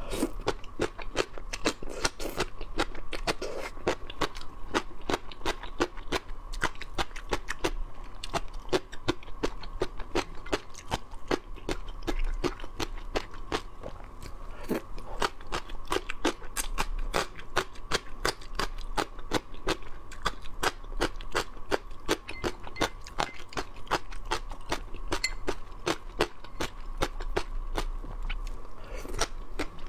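Close-miked crisp crunching and chewing of gongcai (stem lettuce strips), a dense, continuous run of crunches.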